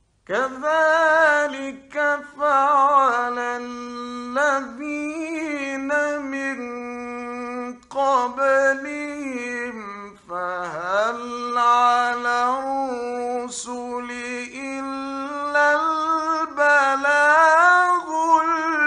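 A male Quran reciter chanting in a melodic, ornamented style, starting just after a pause. He holds long notes with wavering trills and pitch glides, in phrases separated by brief breaths.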